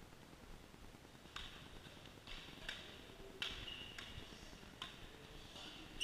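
Badminton racket strings hitting a shuttlecock in a rally: about six sharp hits, less than a second apart, starting a little over a second in. A couple of short high squeaks come between the hits.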